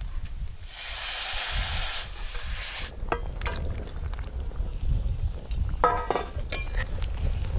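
Hot mustard oil and mustard paste in a wok sizzling loudly for about two seconds as curry gravy with fish and potatoes is poured in. A few clinks and scrapes of a metal ladle against the pan follow, over a steady low rumble.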